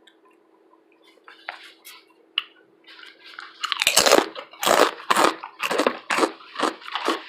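Close-up chewing of crunchy pepperoncini chips dipped in hummus, loud crunches at about two a second, starting about three and a half seconds in after a few faint clicks.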